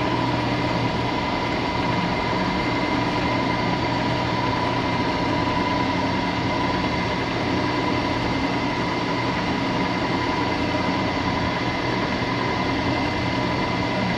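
Milling machine spindle running steadily while an edge finder is used on the work, a constant motor hum with a steady high whine.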